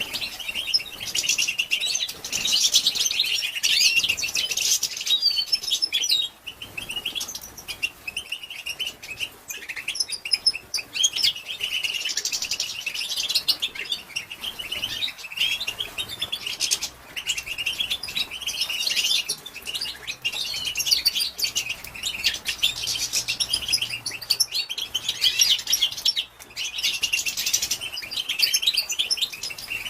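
Female European goldfinch twittering: a dense run of rapid, high chirps and trills with a few brief pauses, the call used to stir male goldfinches into song.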